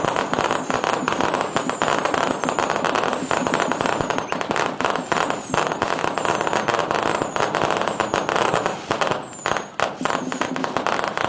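Aerial fireworks going off in a dense, continuous barrage of crackling and bangs, with short high whistles falling in pitch about once a second. The barrage eases briefly near the end.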